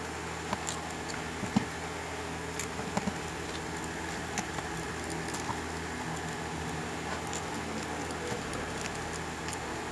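Scattered small clicks and taps from handling a plastic headset while its small screws are being taken out, over a steady low background hum.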